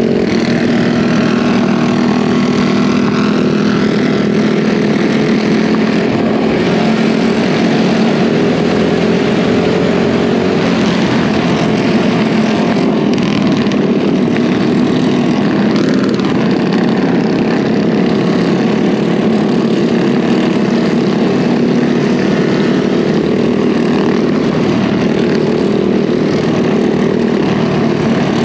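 Minibike's Predator 212cc single-cylinder four-stroke engine running steadily at high revs while cruising at about 40 mph, heard from onboard with a steady rush of wind and road noise.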